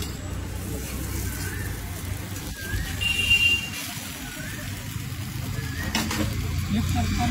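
Egg-based chicken paratha sizzling steadily on a hot flat iron griddle (tawa), cooking slowly, over a low rumble. A short high tone sounds about three seconds in, and a sharp knock comes about six seconds in.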